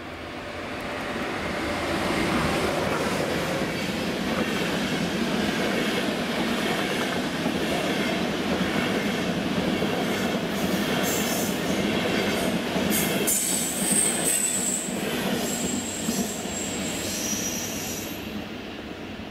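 Electric locomotive and Intercity passenger coaches passing close by: a loud rush of wheels on rail that builds over the first two seconds, with clicks over the rail joints in the middle. A high squeal from the train sounds for several seconds in the second half, and the noise falls away near the end as the last coach goes by.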